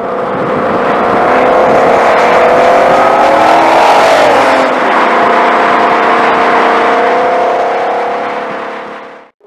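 2020 Shelby GT500's supercharged 5.2-litre V8 accelerating hard, its exhaust note rising in pitch over the first four seconds, then holding steady and easing slightly. It fades in at the start and fades out near the end.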